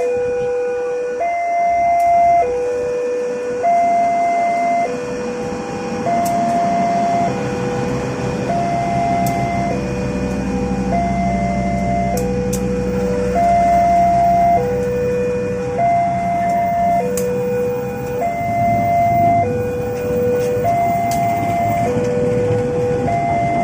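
A two-tone electronic warning alarm alternating steadily between a low and a higher note, each held a little over a second. Beneath it, a low rumble of a passing vehicle swells in the middle and fades after about eighteen seconds.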